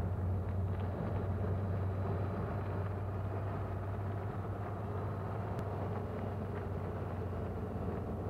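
A motor vehicle's engine running steadily, a low hum with road or engine noise over it.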